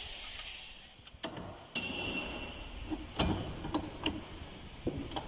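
Metal tools and fork parts being handled on a steel workbench: a hiss that stops about a second in, then a sharp metallic clink that rings briefly, followed by several light clicks and knocks.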